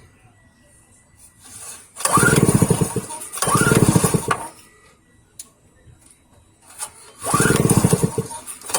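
Recoil starter of a small petrol generator pulled three times, each pull about a second long, turning the engine over without it firing; a fourth pull begins at the very end. The engine does not catch because there is no spark.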